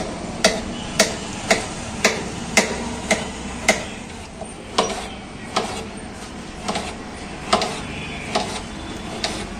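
Kitchen knife slicing tomatoes on a steel plate, the blade tapping the metal with each cut. The taps come about twice a second at first, then slower and uneven from about four seconds in.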